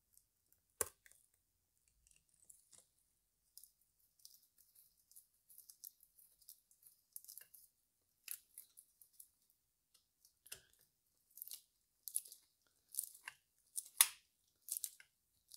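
Faint, scattered metallic clicks and light scrapes of a small bolt being fitted and turned in with a T30 screwdriver on the Valvetronic intermediate-lever spring assembly of a BMW N42 cylinder head. A sharper click comes about a second in and another near the end.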